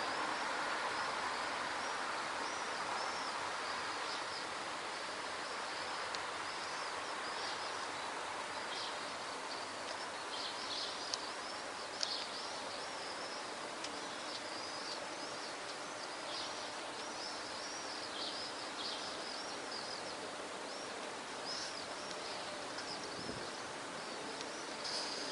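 Swallows calling: many short, high chirps in quick succession, over a steady background noise.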